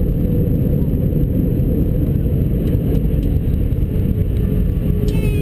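Steady low rumble and hiss of a jet airliner's cabin and engines as it rolls along the runway after landing. A voice starts near the end.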